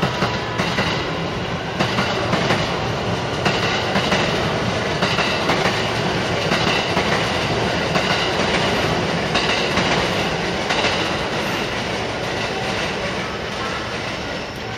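JR West electric train approaching slowly over points, its wheels clicking repeatedly over the rail joints and crossings above a steady rumble of running noise, fading slightly near the end.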